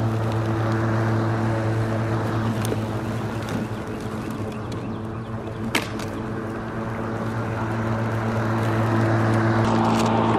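WORX 24-volt 14-inch cordless electric lawnmower running steadily as it cuts grass, its motor and blade giving an even hum. A single sharp click sounds about six seconds in.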